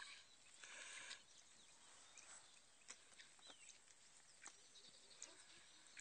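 Near silence: faint open-air background with a brief soft hiss about a second in and a few faint, short chirps and ticks.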